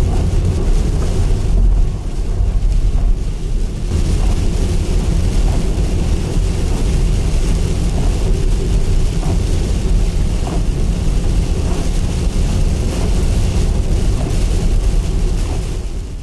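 Camper van cab noise at highway speed in a gale: a loud, steady low rumble of road and wind noise with rain hitting the body and windows, fading out near the end.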